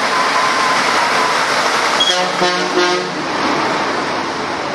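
Heavy trial truck driving past with a steady engine and road noise. About two seconds in, a vehicle horn sounds for about a second.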